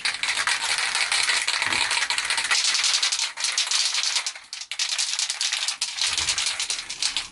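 Aerosol can of primer being shaken hard, its mixing ball rattling rapidly inside, with a short break about halfway through.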